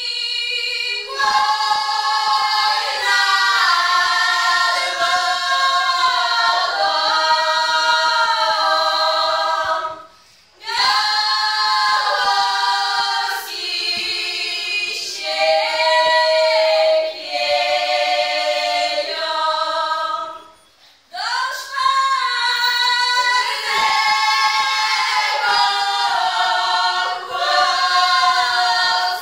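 A group of young women singing a Polish highland (góral) folk song a cappella in several voices. The song comes in three long held phrases, with a short breath-break between each.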